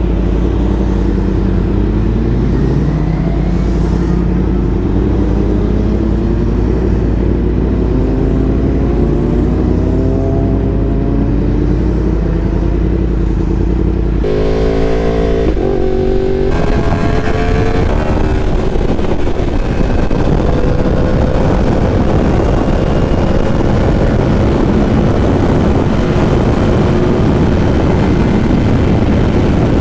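Yamaha R1's inline-four through a full Graves exhaust, under way: the engine pitch climbs again and again through the first half as it accelerates through the gears, changes sharply about halfway, then holds steadier at higher speed under a dense rushing noise.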